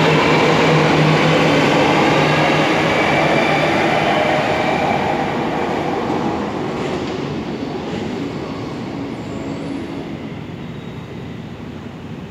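Electric subway train accelerating away from the platform, a rising motor whine over the rumble of its wheels, fading steadily as it runs off into the tunnel.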